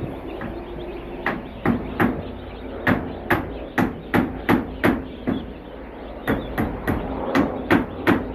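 A run of sharp knocks, about two or three a second, in two runs: roughly nine strikes, a pause of about a second, then about seven more.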